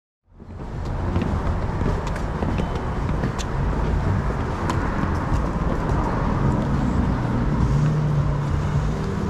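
City street traffic noise, a steady wash of passing cars, fading in from silence in the first half second. Near the end a vehicle's engine drone grows louder.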